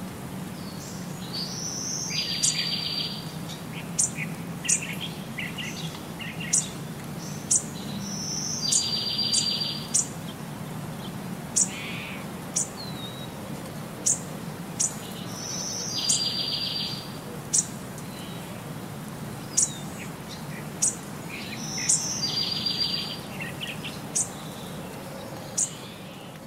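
Birds calling: short, high, sharp chirps about once a second, and about every seven seconds a brief buzzy trill. A steady low hum runs underneath.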